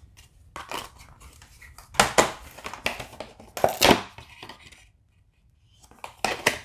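Hands handling a metal Blu-ray steelbook case and its discs: scattered clicks, scrapes and rustles as the discs are pressed into the plastic tray, a card insert is handled and the case is closed. There is a brief lull about five seconds in, then a few more clicks.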